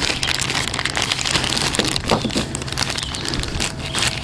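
Firework burning with a dense, continuous crackle of tiny pops.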